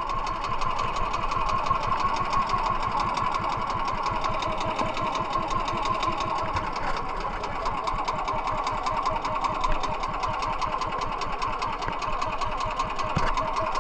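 Small engine of a motorized outrigger fishing boat running steadily under way, a fast even putter.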